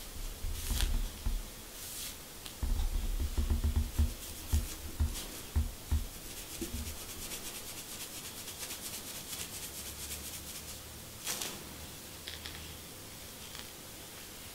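Fingernails and a fine-tooth comb scratching through short hair on a dry, flaky scalp, close to the microphone: dry rasping strokes that speed up into a quick run in the middle, with one louder stroke near the end. Dull low thumps come in the first half.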